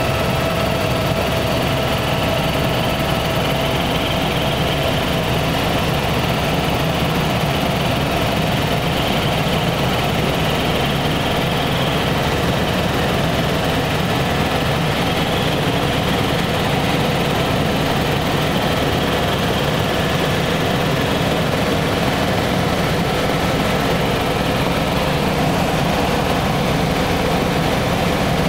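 Helicopter in flight heard from inside the cabin: a steady engine and rotor drone with a faint steady whine above it.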